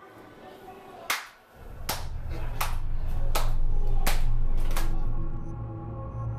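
Dramatic soundtrack music: a low steady drone comes in about a second and a half in, under sharp clap-like percussion hits about one every three-quarters of a second.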